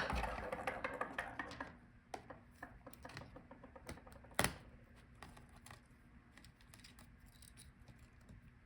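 Small plastic clicks and scratching as cable connectors are unclipped inside an open laptop: a sharp click at the start, about two seconds of crackly scratching, then scattered light clicks with a louder one about four and a half seconds in.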